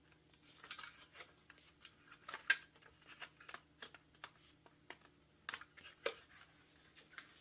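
Faint, scattered clicks and light plastic knocks as the clipped-in plastic fan assembly of a mini desktop PC is handled and pried loose, with one sharper click about two and a half seconds in.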